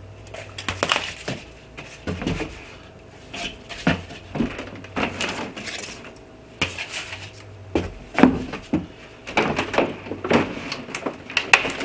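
Hands working a cardboard box and its plastic inner packing: irregular knocks, scrapes and rustles as the packing is pulled and turned to get the figure out.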